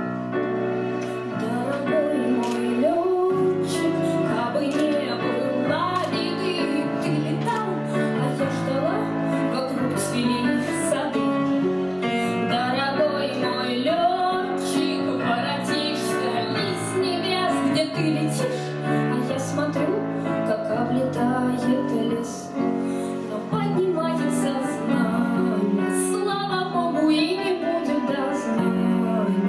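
Live song: a woman singing into a microphone over instrumental accompaniment with a regular beat.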